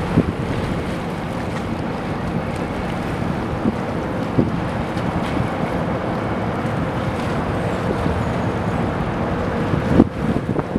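Wind buffeting the microphone over harbor water, with the low steady hum of a shrimp trawler's engine as the boat passes. A single thump near the end.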